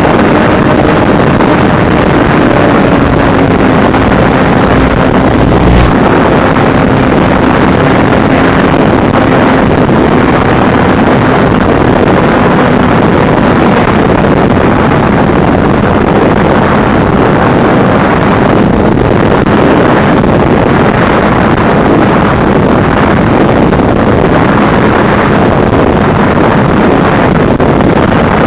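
Loud, steady rush of wind and motor noise from an FPV drone in flight, as picked up by its onboard camera, with a faint steady whine under it. A single sharp click about six seconds in.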